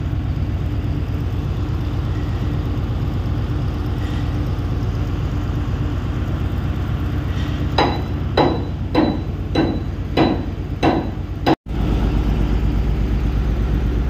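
A steady engine hum from running site machinery, with six evenly spaced metallic clanks about 8 to 11 seconds in, each ringing briefly: footsteps on steel steps as someone climbs down.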